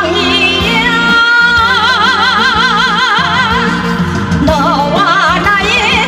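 Korean trot song with a female singer over a backing track; about a second in, a long note with heavy vibrato is held for about two and a half seconds.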